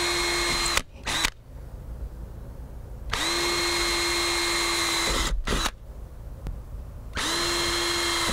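Cordless drill running in three short runs, each at a steady pitch that starts and stops abruptly, the middle one about two seconds long, as it pre-drills pilot holes in an RV's fiberglass sidewall. A few brief clicks fall between the runs.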